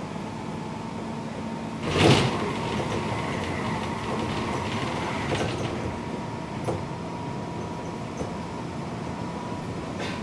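Seibu 6000 series electric train running, heard from inside a motor car: steady running noise with a faint steady hum. About two seconds in a sudden loud burst of noise sounds, fading over the next few seconds, with a few light clicks later.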